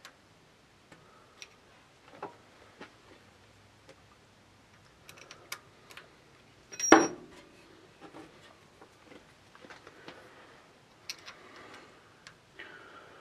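Scattered light clicks and taps of a hex key and tools working a metal lathe tailstock's set-over adjusters, with one louder metallic clink about seven seconds in and a short scrape near the end.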